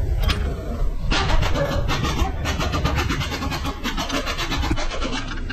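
Ratchet wrench clicking rapidly for about four seconds, starting about a second in, while a rear brake caliper bolt is worked, over a steady low hum.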